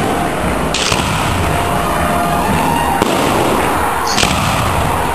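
Aerial fireworks going off: a dense, continuous rumble of shell bursts, with two short sharp crackles, one about a second in and one near four seconds.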